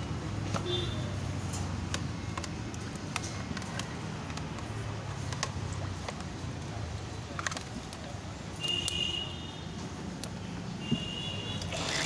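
Scattered light clicks and taps of metal parts being handled as a pressure washer pump's pressure-retaining valve is pressed back into its housing, over a steady low hum. Late on come two brief high-pitched tones.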